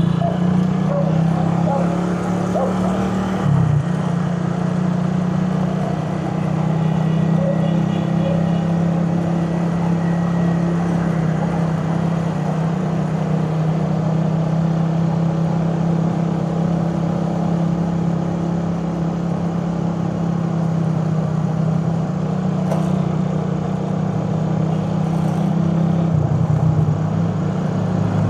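Suzuki Raider 150 carburetted single-cylinder four-stroke engine running under way at a steady pitch, dipping briefly about three and a half seconds in and shifting again near the end.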